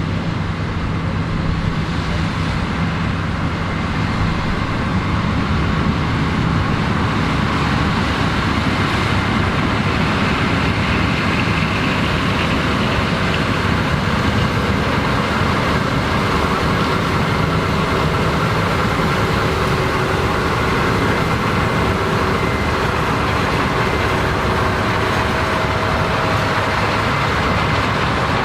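Combine harvesters running while harvesting corn: a steady, loud engine and machinery drone with a faint high whine held over it.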